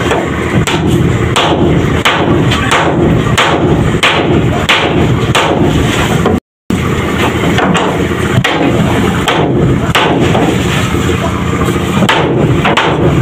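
Repeated hammer blows, sharp knocks about twice a second, over a steady drone of boatyard machinery. The sound breaks off for a moment about halfway.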